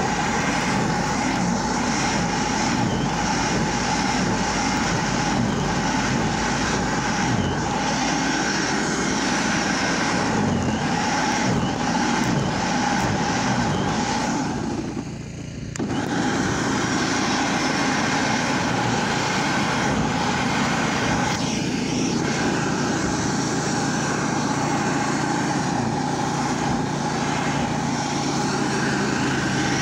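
Snowblower running steadily while it cuts through deep snow and throws it. The sound dips briefly about halfway through.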